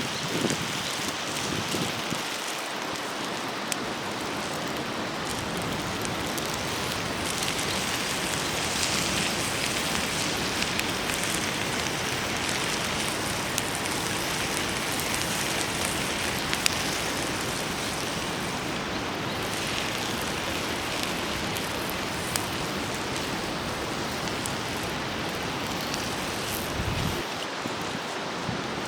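Steady sizzling of yakisoba frying on an iron plate over a campfire, with a few small pops.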